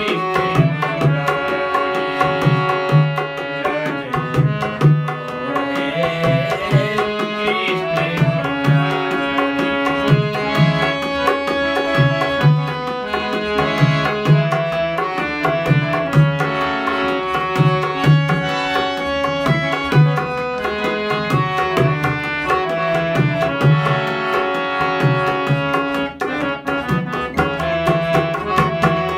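Instrumental interlude of a Hindi devotional bhajan: a tabla keeps a fast steady rhythm under a melody instrument playing held notes.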